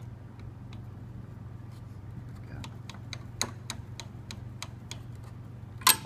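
Screwdriver driving screws into a metal hard-drive cage in a server chassis: small sharp metal clicks, about three a second, from about halfway in, with a louder click near the end.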